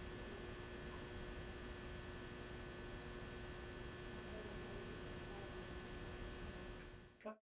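Faint room tone: a steady electrical hum over a light hiss, which cuts off abruptly to dead silence near the end.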